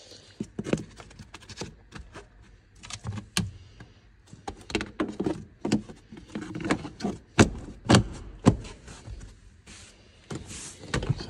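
Scattered knocks and clicks of hands working inside a van cab, putting the battery cover and rubber floor mat back, with three louder knocks in the second half.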